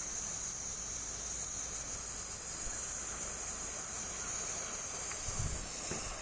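Steady high-pitched hiss of a gas brazing torch flame, used to heat and unsolder the copper pipe joints on an air-conditioner compressor. A brief dull knock about five seconds in.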